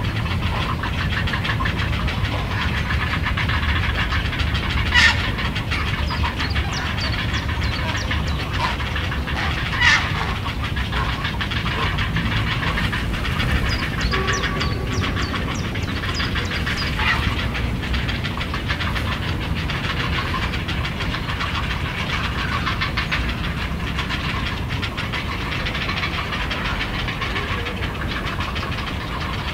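Grey heron chicks begging in the nest with a continuous, fast ticking chatter, a sign of chicks asking the adult for food. A low rumble runs underneath, and a couple of sharper, louder sounds come about five and ten seconds in.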